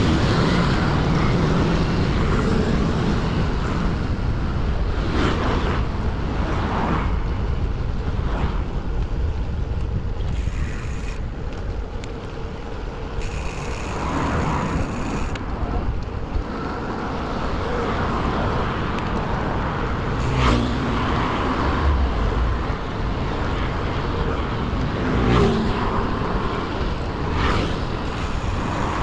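City road traffic and motor scooters heard from a moving bicycle, with steady wind rumble on the microphone and a few knocks.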